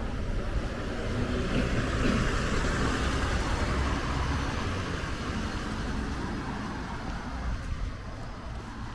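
A car passing on the road, its engine rumble and tyre noise swelling over the first few seconds and then fading away.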